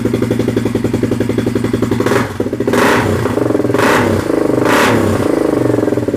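Freshly rebuilt Polaris 570 ACE single-cylinder engine running on its first start, with a new crank and a high-compression Wiseco piston. It idles steadily, is revved three quick times about halfway through, then settles back to idle. There is no knock to be heard, and the owner says it sounds good.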